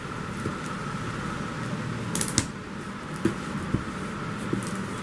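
A taped cardboard parcel is handled and tipped over on a table, making a few short knocks and clicks about two seconds in and several more later. A steady background hum runs underneath.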